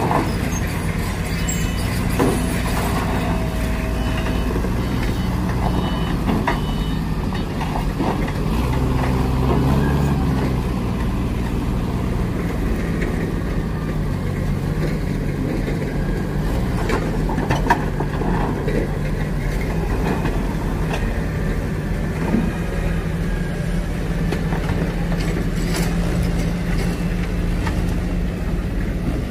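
Forklift engine running steadily with a low hum as the truck drives and handles steel plates. A few sharp knocks sound at intervals, most clearly a bit past halfway and again near the end.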